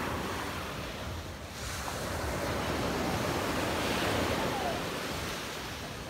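Sea surf breaking on the beach: a steady wash of waves that swells to its loudest around the middle, then eases off.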